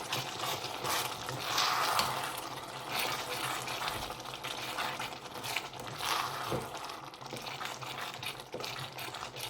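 A spoon stirring and scraping minced meat in a pot as it simmers, with irregular scrapes and clicks over a steady low hum.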